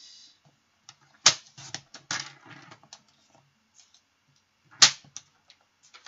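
Paper trimmer cutting cardstock: a loud sharp snap about a second in, then lighter clicks and scraping as the blade runs, and a second loud snap near the five-second mark.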